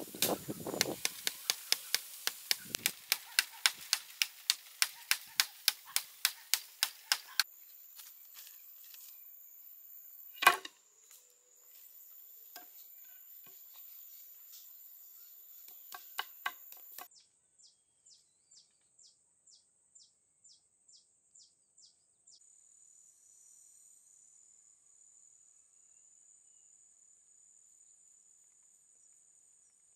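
A fast run of sharp, evenly spaced strikes, about four a second, for the first seven seconds, then steady high-pitched insect calls broken by one loud knock about ten seconds in. After that, high insect chirps about two a second give way to a faint, steady high insect buzz.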